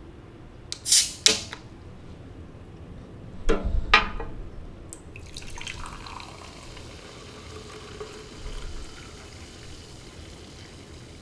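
A few short sharp handling sounds on the aluminium can, two about a second in and two more near four seconds, then Strong Zero chu-hi poured from the can into a glass, a steady splashing and fizzing of the carbonated drink from about five seconds in.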